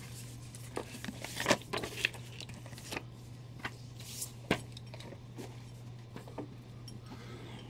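Stacks of paper comic books being handled and set down: papery rustling and sliding, with a few soft taps, over a steady low hum.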